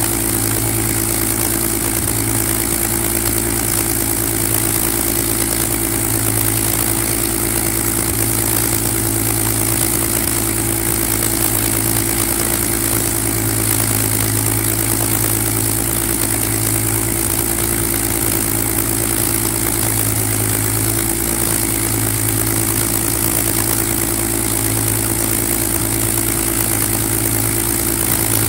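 Rolls-Royce Griffon V12 engine of a Spitfire Mk XIX idling steadily on an early ground run after being freshly installed.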